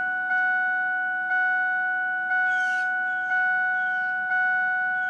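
The 2000 Ford 7.3 Powerstroke's dashboard warning chime, with the key turned on before cranking, ringing about once a second, each ding fading before the next, over a faint steady hum.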